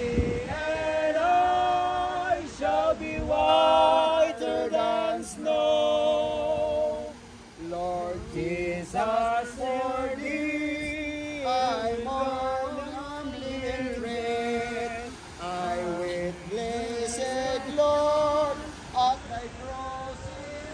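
Men and women singing together, a slow tune with long held notes.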